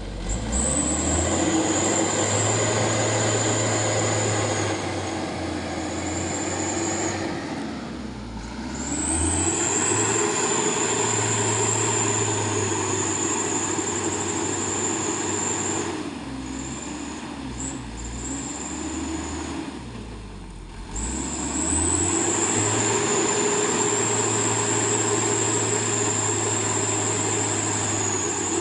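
Truck engine revved high and held in three long pulls, easing back briefly between them, with a thin high whine riding over it.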